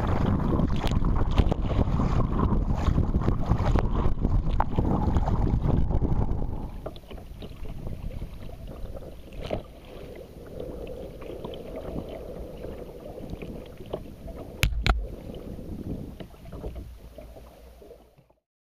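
Gusty wind buffeting the microphone over the splashing of kayak paddle strokes on choppy lake water. After about six seconds the wind drops away, leaving lighter paddle splashes and water lapping, with two sharp knocks near the end.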